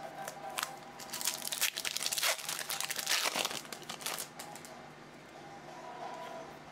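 Crinkling of a foil trading-card pack wrapper being handled and pulled open, a dense crackle for the first four seconds or so, then quieter.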